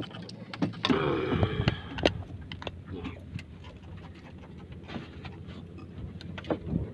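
Scattered knocks and clicks of handling on a small wooden fishing boat over a low steady hum, with a brief voice sound about a second in.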